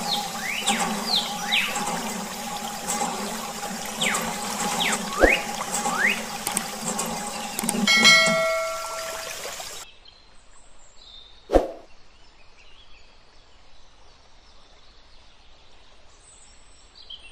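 Water pouring and splashing onto a toy tractor, with a steady hum and short whistling glides over it. About eight seconds in, a short chime sounds and the water stops. Then it goes much quieter, with one sharp click near the middle of the quiet part.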